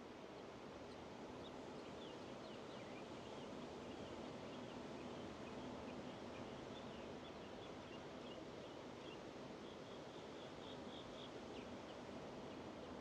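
Atlantic surf breaking and washing on the beach as a steady, faint wash of noise, with many short, high bird chirps scattered through it.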